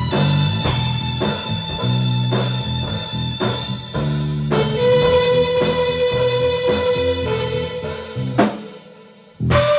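Improvised rock band jamming on electric guitar and drum kit with a steady beat. About halfway in a guitar note is held and sustains, then the playing drops away briefly near the end before the band comes back in loudly.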